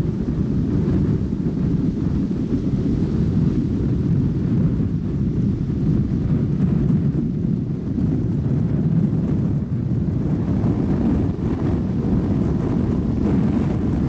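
Strong wind buffeting the microphone: a steady, loud low rumble that rises and falls.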